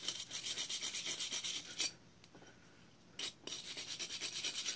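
Quick back-and-forth scrubbing strokes on a starter motor end cap, cleaning it off by hand. There are two runs of several strokes a second, with a pause of about a second and a half between them.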